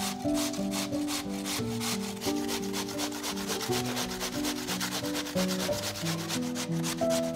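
A peeled raw potato being grated on a coarse stainless steel cone grater: a rapid, regular rasping, one quick stroke after another.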